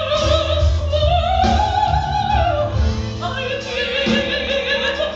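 Female soprano singing gospel in a classically trained style, with sustained notes and wide vibrato. The line climbs to a high held note around the middle and then comes down, over low sustained accompaniment.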